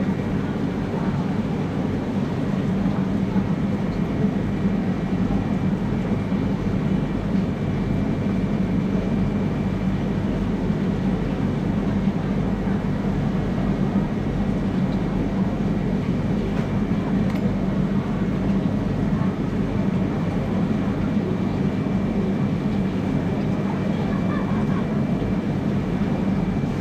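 A steady low mechanical hum that does not change, with a faint thin high whine running through it.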